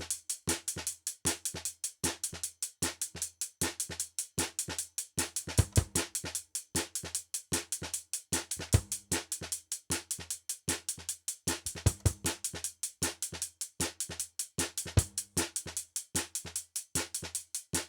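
Background music with a steady, fast drum beat and a repeating bass line.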